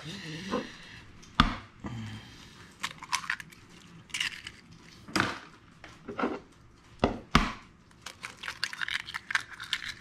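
Eggs being cracked for cake batter: sharp taps of eggshell against a hard edge a few seconds apart, including a quick double tap about seven seconds in, with softer shell-breaking and handling noise between.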